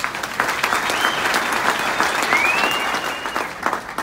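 Audience applauding, with a high tone that rises and then holds for about a second past the middle.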